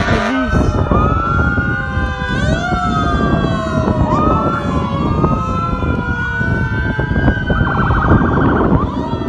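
Emergency vehicle sirens wailing, more than one at once, their pitch sweeping slowly up and down, with a rapid warbling yelp about eight seconds in, over a steady low rumble of traffic.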